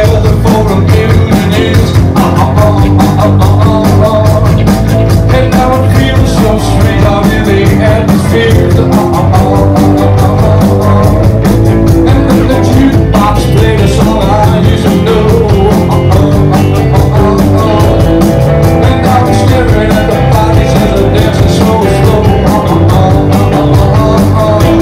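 Live rock band playing loudly, with a drum kit keeping a steady beat under electric guitars and bass.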